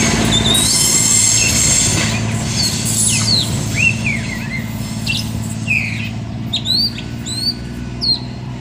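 A passenger train moving away: its steady low engine drone slowly fades, with rolling noise from the wheels in the first couple of seconds. Small birds chirp repeatedly over it, more often in the second half.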